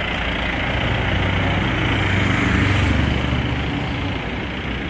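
A small engine running steadily, growing louder and deeper for a moment about halfway through before settling back.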